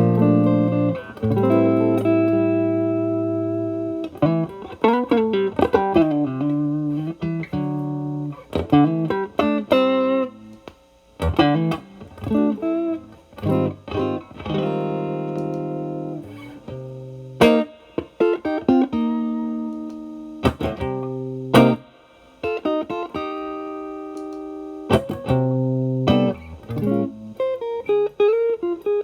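Overdriven electric guitar: a Fender Stratocaster played through an Xotic BB Plus preamp, with channel A switched on as a gain boost feeding channel B's drive, into a Marshall Valvestate amp. It plays held chords and single-note lines with string bends, in short phrases with brief pauses between them.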